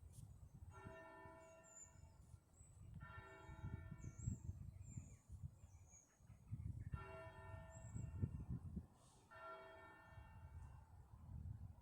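Church bells ringing, heard faintly as separate groups of strokes that each die away over a second or two, over a low rumble.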